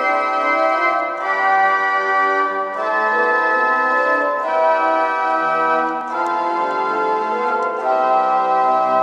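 Pipe organ on the plein jeu registration, the full principal chorus with mixtures, playing sustained chords improvised on the C major scale that change every second or so.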